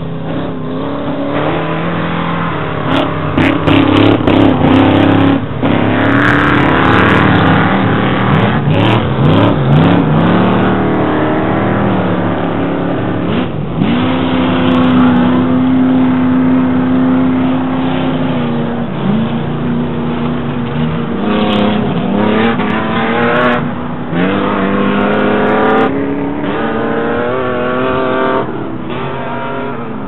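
Off-road race trucks' engines running hard around a dirt circuit, several at once, revving up and down as they accelerate, lift and shift. About midway one engine is held steady at high revs for several seconds.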